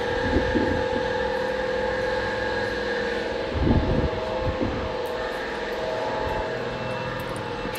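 Multimeter continuity buzzer sounding a steady tone while its probes are on a wiring pin: the circuit is closed, so that wire has continuity. A brief low bump from the probes being handled comes about four seconds in.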